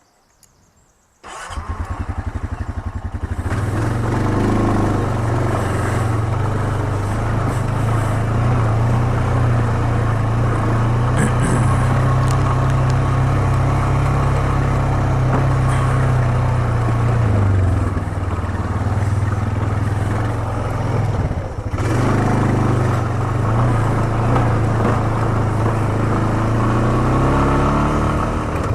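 ATV engine starting about a second in, then running steadily as the quad rides along the trail, with a short drop in the engine note about two thirds through and revs rising near the end.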